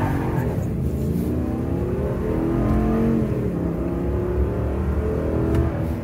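Ram Power Wagon's 6.4-litre HEMI V8 under full-throttle acceleration, heard from inside the cab. The engine climbs in pitch, drops at a gear change about halfway through, then climbs again.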